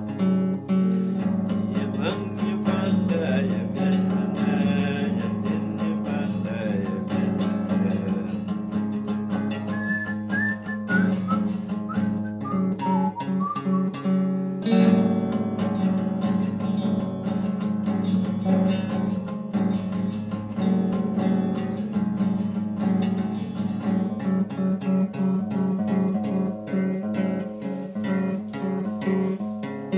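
Acoustic guitar playing, a steady run of plucked and strummed notes and chords.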